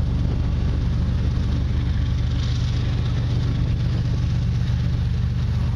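An engine idling steadily, a low, even hum that does not change.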